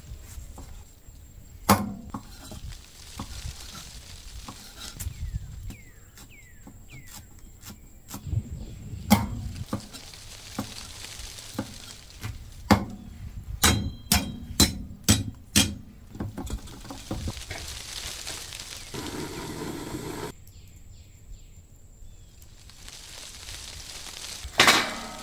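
Cleaver chopping onion and mushrooms on a thick round wooden chopping block: scattered sharp knocks, then a quick run of about eight chops a little past the middle. A louder, rough burst of noise comes near the end.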